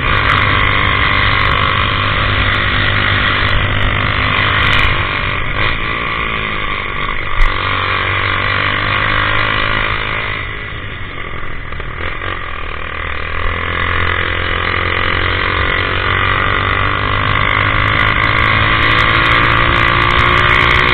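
Honda CG 150 Titan's single-cylinder engine running through a modified twin exhaust while riding, its pitch rising and falling with speed. It eases off and goes quieter for a few seconds around the middle, then pulls and builds again.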